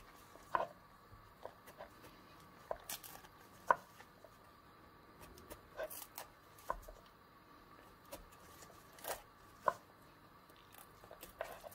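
Irregular crisp clicks and snaps of a knife cutting tough outer leaves away from the stem end of a raw artichoke, over a faint steady hum.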